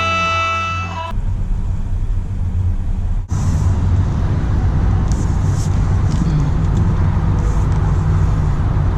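Music cuts off about a second in, followed by a car engine idling, a steady low rumble, with a brief dropout about three seconds in.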